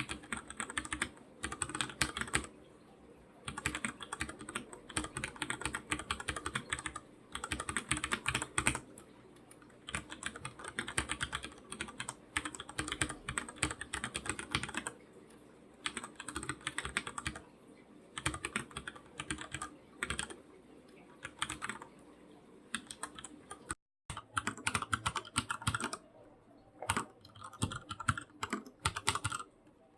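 Typing on a computer keyboard: fast runs of key clicks lasting a few seconds each, separated by short pauses. There is a brief break in the sound about 24 seconds in, then the typing resumes.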